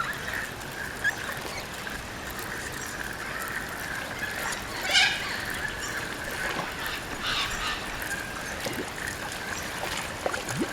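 Outdoor ambience with birds calling and a steady background hiss, and one short, louder sound about five seconds in.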